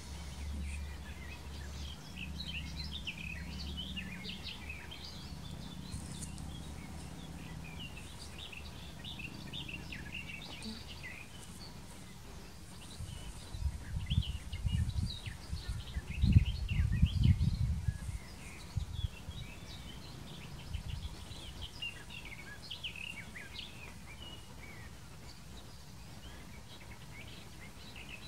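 Wild birds chirping and singing, many short calls throughout, over a low rumble of wind buffeting the microphone that comes in strong gusts about halfway through.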